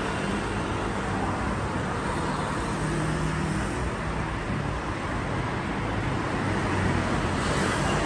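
Steady road-traffic noise, an even hiss with no distinct knocks or chatter standing out.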